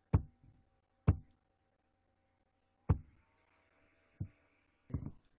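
Computer mouse button clicks: five sharp clicks spaced unevenly, roughly a second or more apart, the last a quick double click.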